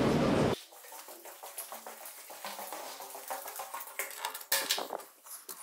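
Keys jingling and a key clicking and turning in a door's cylinder lock, with the sharpest clicks as the lock and latch open about four and a half seconds in. The first half-second is loud rumbling station noise that cuts off abruptly.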